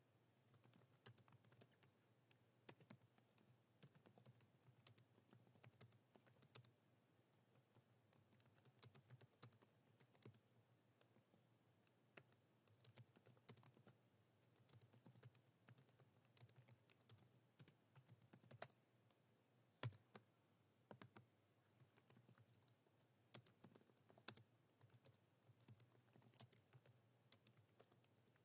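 Faint typing on a computer keyboard: quick runs of keystrokes broken by short pauses, with one louder key strike about twenty seconds in, over a low steady hum.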